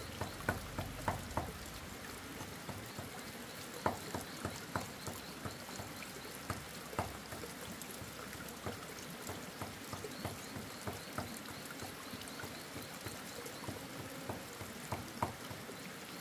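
Water trickling, with scattered light clicks and knocks at irregular intervals.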